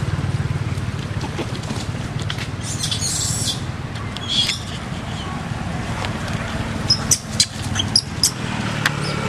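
Short, high-pitched chirps and squeaks: a couple of brief clusters early on, then several sharp ones close together near the end, over a steady low hum.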